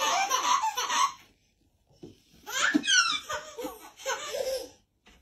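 Baby belly-laughing in bursts. After about a second there is a pause, then a second bout of laughter with a high squeal that falls in pitch.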